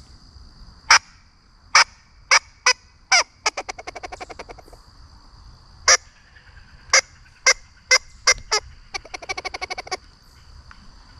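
Bayou Legacy Harvester squirrel call, blown by mouth to imitate a squirrel. Each of two rounds has several sharp single barks followed by a quick rattling chatter of rapid notes.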